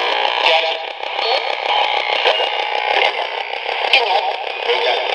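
Hacked RadioShack 469 radio in ghost-box sweep mode, scanning rapidly through stations: a thin, bass-less stream of chopped broadcast voice and music fragments and static from a small amplified speaker, fed through a home-made delay/echo box, with a few faint clicks.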